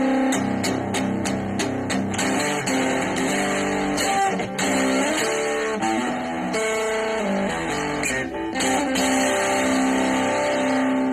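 Electric guitar played through a VOX Pathfinder 10 practice amp: a quick run of picked or strummed attacks, then ringing chords and single-note lines.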